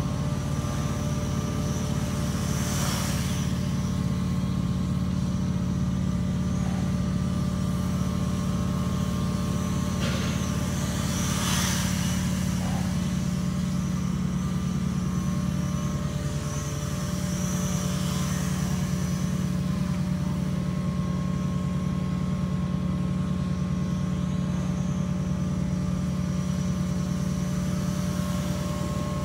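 Steady, low hum of an idling engine, with fainter steady higher tones above it.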